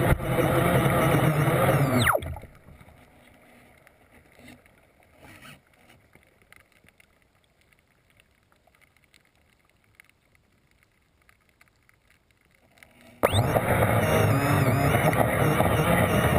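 Electric RC boat motor and propeller running at speed, heard through an underwater GoPro: a loud rush of water with a high whine. About two seconds in the whine falls away and the motor stops, leaving near silence. About thirteen seconds in the throttle opens again and the motor spins back up with a sudden rising whine.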